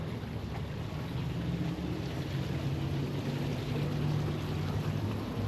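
A vehicle engine running steadily, with a low hum and wind noise on the microphone.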